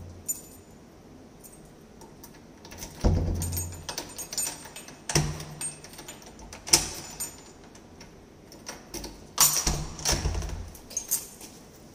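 Keys jangling with the clicks and rattles of a door's lever handle and lock being worked by hand, in several short bursts with quiet gaps between.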